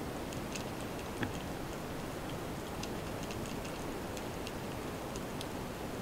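Underwater sea noise heard through a camera housing: a steady wash with scattered short, sharp clicks and crackles, one a little louder about a second in.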